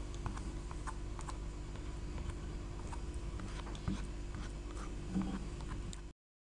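Light, scattered clicks and scrapes of a wooden pestle working ground tomato chutney in a stone mortar, over a steady low hum. The sound breaks off to silence just before the end.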